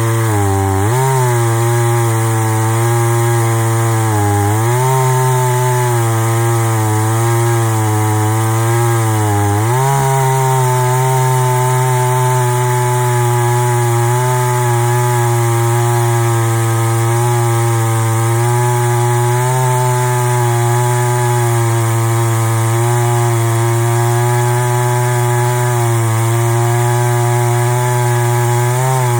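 Two-stroke chainsaw on a chainsaw mill, its flipped-over 22-inch bar ripping a log lengthwise into a slab at full throttle. The engine pitch dips and recovers three times in the first ten seconds as the cut loads it, then holds nearly steady as the saw cuts through.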